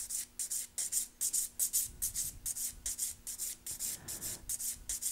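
Quick, even back-and-forth rasping of a 180-grit hand nail file on an acrylic nail, several strokes a second: the nail is being beveled down toward the tip in the final shaping step.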